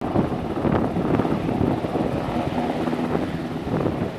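Navy H-60 Seahawk helicopter hovering, its rotors giving a steady running noise.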